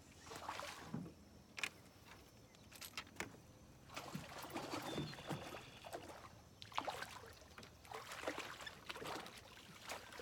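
Water splashing in irregular bursts as a hooked catfish is fought at the surface close in, with a few sharp clicks between.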